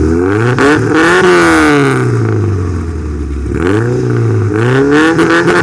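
1974 Ford Pinto's rebuilt 2.3-litre four-cylinder engine revved twice through a new MagnaFlow MagnaPack muffler. Each time the pitch climbs and falls back to idle.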